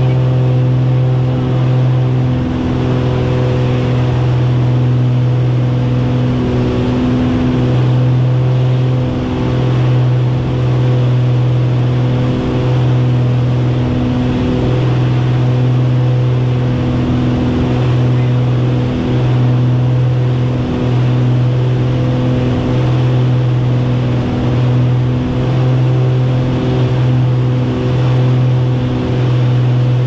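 Beechcraft Baron's twin piston engines and propellers droning steadily, heard from inside the cockpit: a strong, even low hum over a rush of noise.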